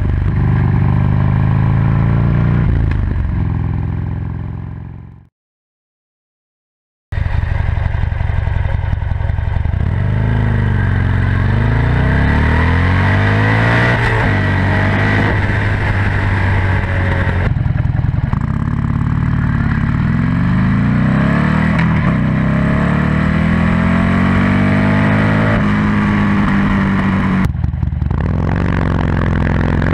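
2007 Buell XB9SX's air-cooled V-twin heard from right beside the muffler while riding. It starts through an aftermarket Penzl flap exhaust with the flap open and fades out to a couple of seconds of silence about five seconds in. It then returns through the stock muffler, its pitch repeatedly climbing and dropping back, and near the end switches back to the open Penzl exhaust.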